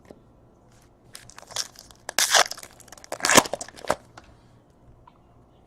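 Wrapper of a 2017 Panini Certified Football card pack being torn open and crinkled by hand: a cluster of quick rips and rustles between about one and four seconds in.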